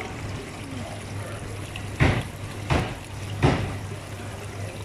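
Water churning and bubbling in supermarket live-fish tanks over a steady low pump hum, with three sudden loud splashes about two, two and three quarters, and three and a half seconds in.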